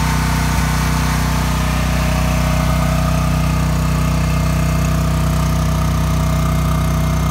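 Portable generator engine running steadily inside a shed enclosure, its noise somewhat muffled by the walls, with the enclosure's shutter exhaust fan running as well.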